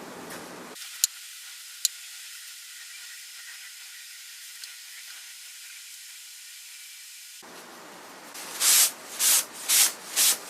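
Wood stain being worked onto furniture: a faint steady hiss with two sharp clicks early, then four quick hissing rubbing strokes about half a second apart near the end.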